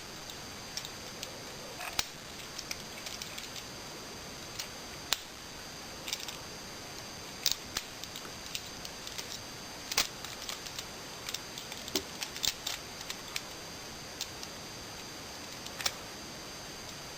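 Plastic parts of a Transformers action figure clicking and ticking irregularly as it is handled and transformed, joints and panels snapping and scraping past each other.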